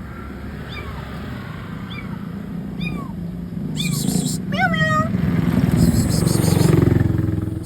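Small kittens meowing: short, high-pitched cries about once a second, with a louder, longer meow about halfway through. A low rumble builds over the second half and is the loudest sound near the end.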